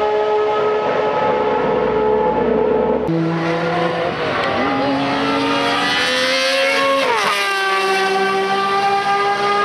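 Matra MS670's V12 racing engine at high revs, a high, steady note. After a cut it drops lower with quick throttle blips on downshifts, then the revs climb as the car accelerates, with an upshift about seven seconds in.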